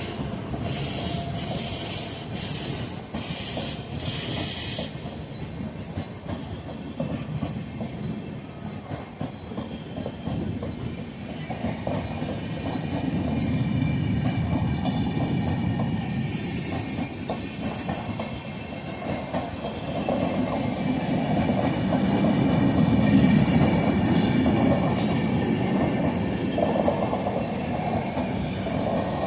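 Indian Railways express train passing at speed: a continuous rumble with the clickety-clack of wheels over rail joints, swelling louder about halfway through and again near the end. In the first few seconds there are short, sharp bursts of high clatter.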